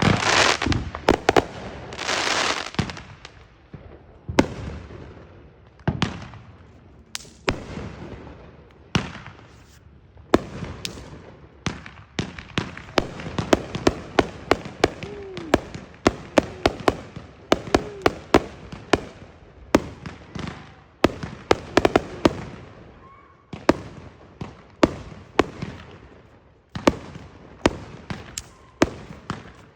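Many fireworks going off one after another: sharp bangs and booms with echoing tails, with dense crackling volleys in the first few seconds and again through the middle.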